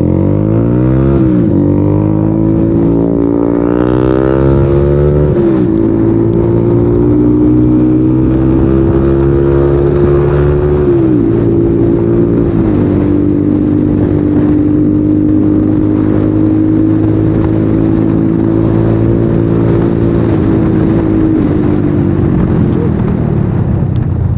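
Bajaj Pulsar 150's single-cylinder engine through an SC Project aftermarket exhaust, accelerating hard. The pitch climbs and drops back at three upshifts, then holds a steady cruise and eases off near the end. The exhaust note is very loud.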